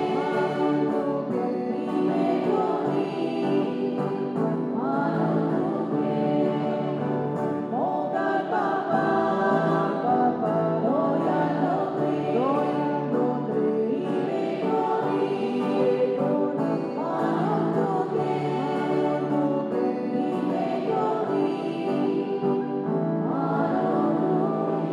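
Church choir singing a hymn with instrumental accompaniment, continuously and at an even level: the offertory hymn of a Catholic Mass.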